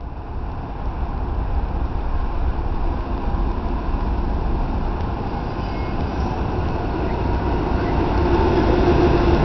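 Two BNSF diesel freight locomotives at the head of a double-stack container train approaching and passing close by: a steady rumble of engines and wheels on rail that grows louder as they draw near.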